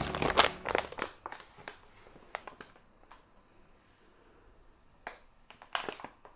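Paper sugar bag crinkling and crackling as it is opened and tipped, with granulated sugar poured into a glass jar on a scale. The crackles are thick in the first second and a half, fall to a faint hiss in the middle, and return briefly near the end.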